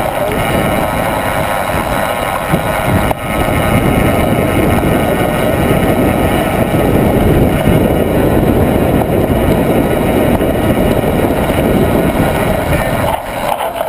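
Wind buffeting the camera microphone, mixed with the rumble of mountain bike tyres on a concrete and dirt track during a fast descent. The noise eases near the end as the bike slows.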